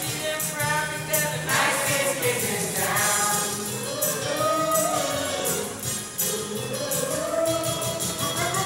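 A stage-musical song number: voices singing over a band accompaniment with a steady beat and bright, tambourine-like percussion.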